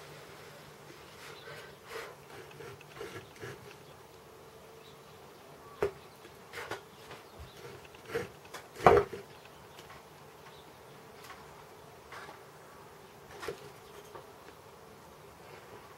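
Chip-carving knife cutting into wood: scattered short scratches and clicks, with the loudest cut about 9 seconds in. A steady faint hum runs underneath.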